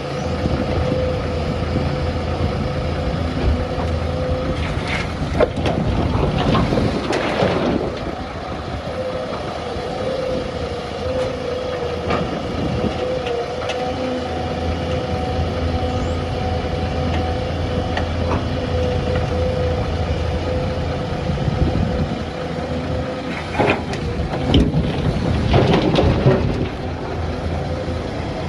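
Doosan DX excavator's diesel engine and hydraulics running steadily under a constant whine. Twice, about six seconds in and again near the end, a louder rush of noise with clanks rises over the engine.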